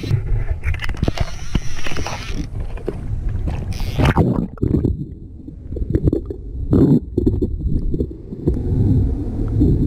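Wind and sea noise, then a camera plunging through the sea surface with a splash about four seconds in. After that the sound turns muffled, a low underwater rumble and gurgle with swells of water rushing past.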